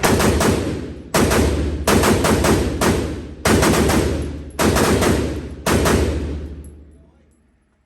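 Gunfire in about six quick strings of two to four shots each, every string leaving a long fading echo that dies away near the end.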